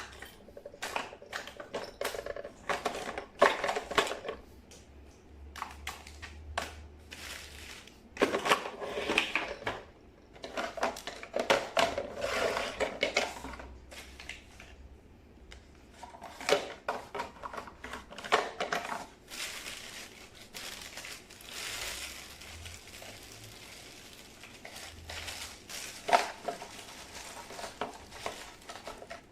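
Irregular clattering, clicking and rustling of objects being handled, in a small room.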